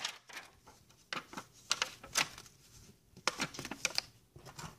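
A clear plastic window sheet being handled and folded along its score lines, giving scattered light crinkles and clicks.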